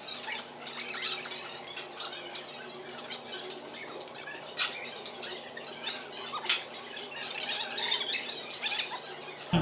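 Close-up eating sounds: grilled chicken (chicken inasal) torn apart by hand and chewed, with scattered short clicks, crackles and mouth smacks.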